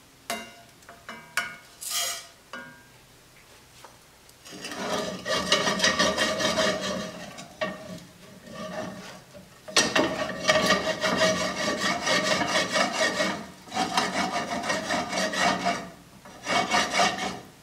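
A metal pot scraping and grinding against a metal fireplace grate in several long spells, with some ringing, after a few sharp clicks near the start.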